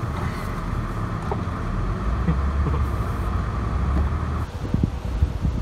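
Honda Accord driving, engine and road rumble heard from inside the cabin. About four and a half seconds in the steady hum drops away and uneven low thumps follow.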